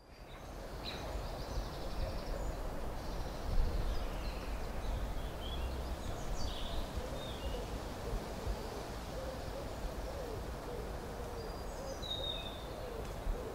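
Quiet park ambience that fades in at the start: a steady low background rumble and hiss, small birds chirping faintly at a distance, and a low wavering bird call in the second half.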